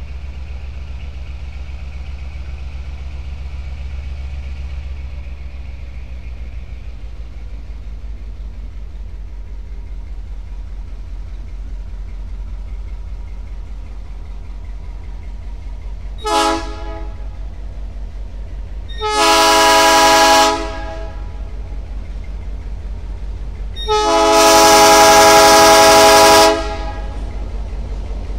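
Diesel locomotive air horn sounding three times over a steady low rumble: a short toot, then two long chord blasts, the last one the loudest.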